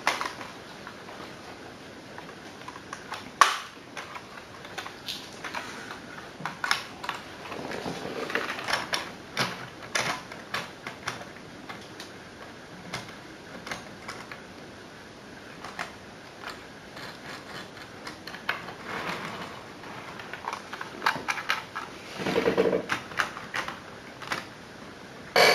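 Irregular light clicks, taps and knocks of small plastic model railway rolling stock being handled on the layout, with a sharper knock about three and a half seconds in and a few soft rustles.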